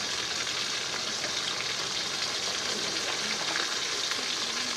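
Steady sizzling hiss with faint crackle from a pot at a rolling boil over a fire in a clay stove.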